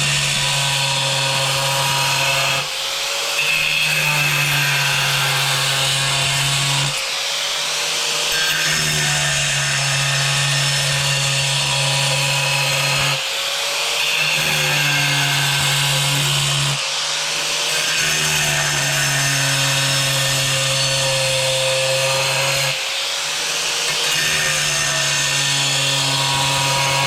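Angle grinder running at speed, its disc grinding steadily into a hard tile as it is worked round and round a circular cut. The low note of the grinding drops out briefly and shifts every four to six seconds as the disc is moved along the cut.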